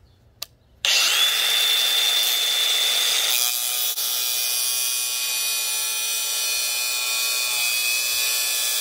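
DeWalt cordless angle grinder: a click, then the motor spins up to a steady high whine just under a second in. From about three and a half seconds in the tone changes as the spinning disc is pressed against the bolt head, and it keeps running under load.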